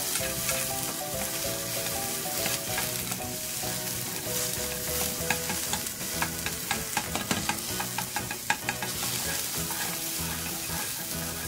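Sliced onions sizzling in oil in a frying pan, stirred with wooden chopsticks that tap and scrape against the pan in frequent short clicks.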